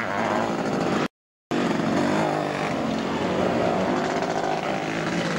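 Motocross sidecar outfits' engines running hard and revving as they race past. The sound cuts out completely for a split second about a second in, then the engines carry on.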